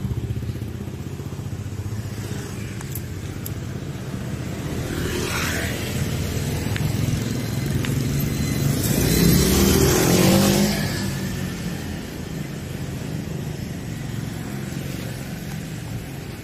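Motorbike traffic running along a city street. One motorbike passes about five seconds in, and another goes by close about nine to eleven seconds in, the loudest moment, its engine pitch sliding as it passes.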